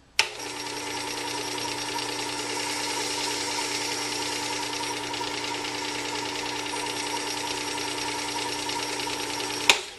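Work Sharp WS3000 tool sharpener switched on with a click, its motor running steadily and driving the abrasive belt of the belt sharpening attachment with no tool on it: a steady hum with a whine and an even hiss. Near the end it clicks off and the sound stops at once.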